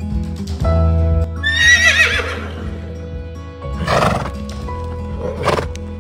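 A horse neighing: one long, quavering whinny that falls in pitch, followed by two short, noisier sounds, over steady background music.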